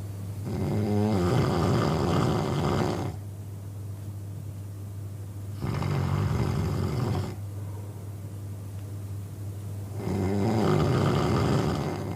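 A man snoring: three snores, each two to three seconds long, coming about every four to five seconds, with quieter breathing between them.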